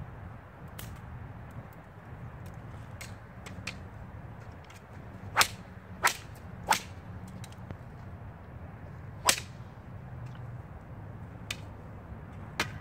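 Four sharp cracks: three in quick succession about two-thirds of a second apart near the middle, then one more about two and a half seconds later, with a few fainter clicks around them.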